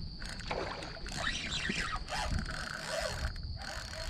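Irregular bursts of scraping and splashing noise from a kayak and its fishing tackle while a hooked redfish is being fought and makes a run.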